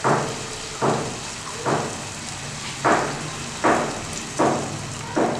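Ground paste and onions sizzling in a hot nonstick pan, in regular surges about once every second, each sharp at the start and then fading, over a steady low hum.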